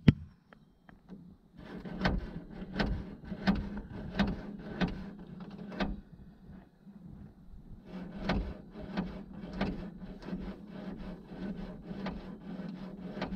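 Choke cable and carburetor choke linkage being worked in and out over and over, making a string of sliding clicks about one and a half a second. It comes in two spells with a short pause near the middle, over a steady low hum.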